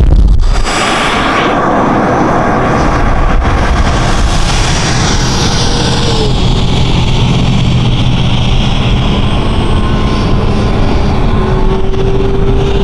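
Electric ducted fan of a Dynam Meteor V3 70 mm, 12-blade EDF jet whining over a steady rush of air during a fast pass. Its pitch falls about five to seven seconds in as the jet goes by. There is a loud burst of noise in the first half second.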